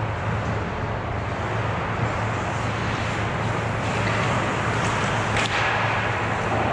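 Ice hockey rink game sound: a steady low hum under a wash of noise, with a hiss like skates scraping the ice building about four seconds in and one sharp knock a little after five seconds, like a stick or puck striking.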